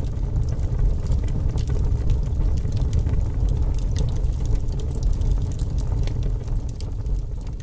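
Deep, steady rumble with scattered crackles throughout: a fire-and-rumble sound effect for an animated flaming logo intro.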